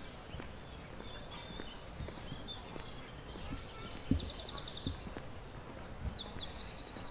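Several songbirds singing high, quick phrases, some of them fast trills of short notes. Under the birdsong come low thuds of footsteps on a paved path, about one a second, the loudest a little past the middle.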